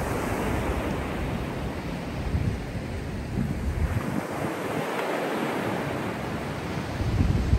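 Small waves breaking and washing up a sandy beach, the surf swelling and easing, with gusts of wind buffeting the microphone, strongest near the end.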